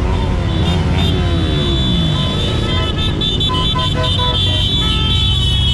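Motorcycles riding past slowly in procession, their engines rumbling steadily, with the pitch of one passing bike falling over the first two seconds. From about halfway, a run of short high toots at changing pitches joins in.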